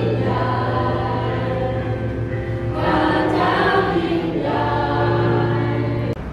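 Church congregation singing a worship song with long held notes, stopping abruptly near the end.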